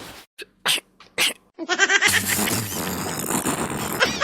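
A man's loud, exaggerated comic snoring: a few short separate bursts, then a dense, continuous stretch from about halfway in.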